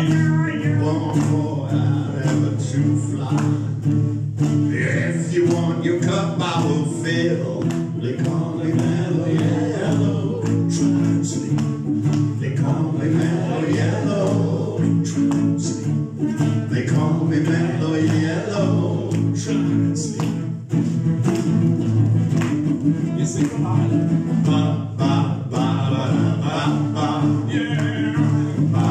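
Live acoustic guitar strumming a steady rhythm with male voices singing along, an easy-going folk-pop song played by a small duo.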